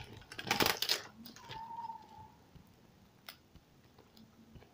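Plastic wrapping on a toy ball crinkling and tearing as it is ripped off by hand, thickest in the first second, then quieter handling with a couple of light clicks.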